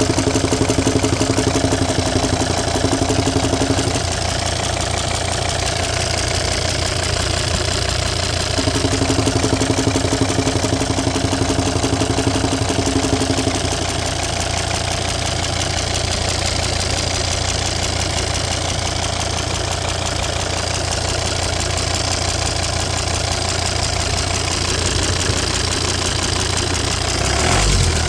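Volvo XC90 D5 185 hp diesel engine idling with a popping noise, which the owner puts down to either the PCV system or the lifters. A humming tone comes and goes twice in the first half.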